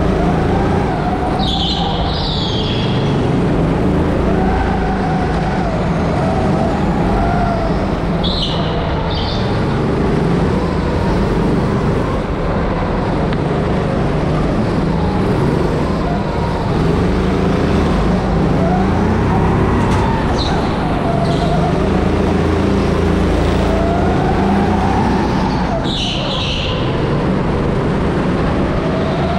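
Rental go-kart motor heard from on board during a lap, its pitch rising and falling as the kart speeds up on the straights and slows for corners. Short high tyre squeals come through about four times as it corners.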